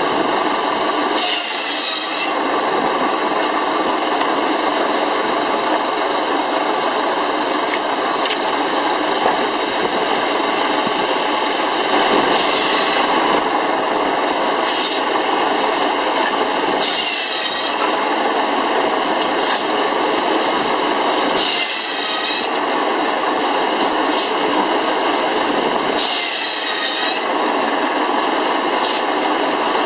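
A shingle mill's circular saw running steadily, driven by a small steam engine. It rasps through a wooden block on the carriage about six times, one short cut every four to five seconds in the second half, each cut sharper and higher-pitched than the steady run between.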